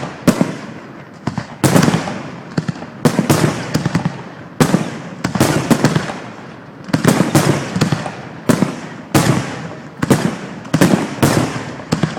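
Fireworks display: fireworks bursting one after another, a sharp bang roughly every second, each trailing off in a fading rumble.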